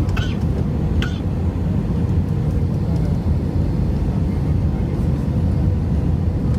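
Airbus A319 cabin noise heard from a window seat over the wing: a loud, steady low rumble of the engines and airflow with a faint steady tone above it. A few brief voice-like sounds come in the first second.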